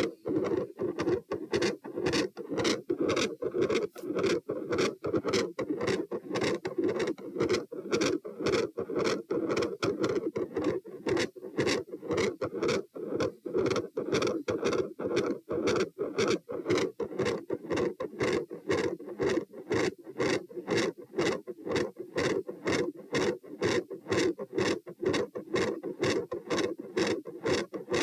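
Heart sounds heard through a stethoscope at the pulmonic position: a quick, regular lub-dub beat with a loud second sound. A continuous rushing murmur runs underneath, which the recordist likens to machinery.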